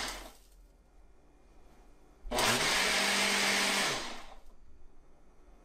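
Ninja Smart Screen blender's 1400-watt motor running its Extract program in pulses on a single-serve cup of orange, apple, raw beet and ice. It spins down at the start and pauses about two seconds. It then runs for under two seconds and spins down again into another pause.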